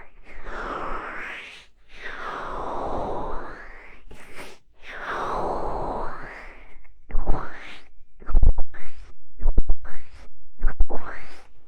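ASMR ear-covering and ear-scratching on a microphone: slow muffled rubbing sweeps of hands cupping over the mic for the first half, then quicker, sharper scratching strokes with thumps about seven seconds in.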